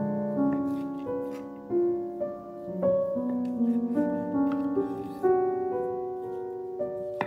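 Gentle piano music, one or two held notes at a time. Faint taps of a knife on a wooden cutting board sound underneath now and then.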